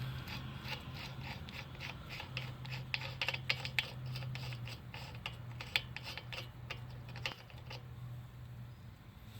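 Irregular light clicks and scrapes of hand tools being handled during work on a car's front wheel, densest in the middle, over a steady low hum.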